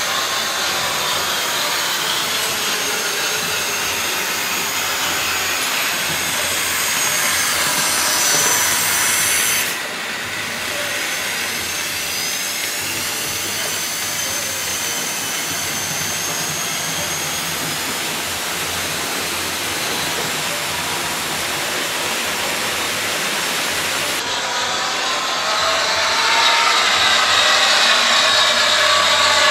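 Model trains running on layout track: a steady whir of small electric motors and wheels rolling on rails, with whining tones that rise and fall in pitch as the trains pass, growing louder near the end.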